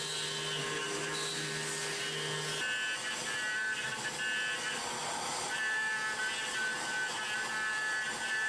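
CNC milling of a metal mold core with a bullnose (corner-radius) end mill: a steady cutting whine of several held tones. About two and a half seconds in, the tones jump from a low hum to a higher whine.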